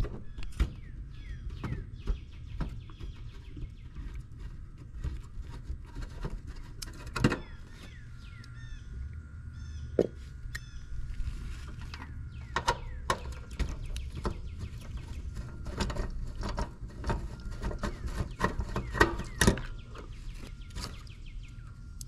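Screwdriver and hand tools clicking and scraping on an air-conditioner condenser's contactor and panel as the contactor is unscrewed and pulled out, in irregular small knocks. Birds chirp faintly in the background.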